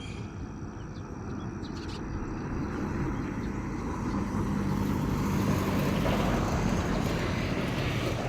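An engine running with a low steady hum and a noisy rush, growing louder over the first half and easing off slightly near the end, as if it were passing close by.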